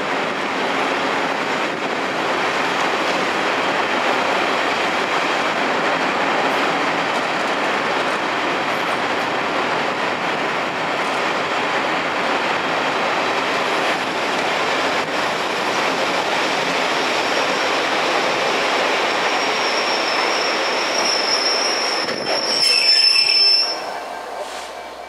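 Diesel-hauled passenger train running on the rails with a steady rushing noise. A high metallic wheel squeal builds about twenty seconds in and peaks near the end, then the noise drops away sharply.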